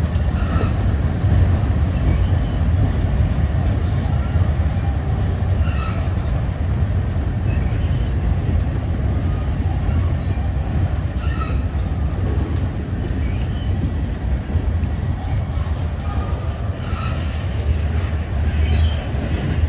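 Manifest freight train rolling past: a steady low rumble of cars on the rails, with scattered short high-pitched wheel squeals and clicks.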